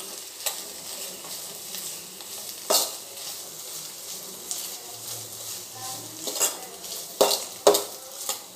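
Diced vegetables sizzling in hot oil in a nonstick pan while a wooden spatula stirs them. Several sharp scrapes and knocks of the spatula against the pan stand out over the steady sizzle, the loudest two near the end.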